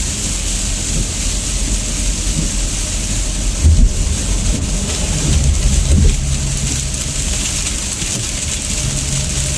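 Heavy rain hissing steadily on the car's roof and windshield, heard from inside the cabin over the low rumble of the car on the wet road. A couple of low thumps come about four and six seconds in.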